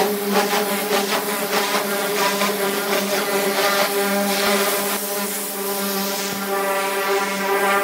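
Pressure washer running with a steady, unchanging hum under the hiss of its wand spraying a high-pressure jet onto bare, chemically stripped car-body sheet metal.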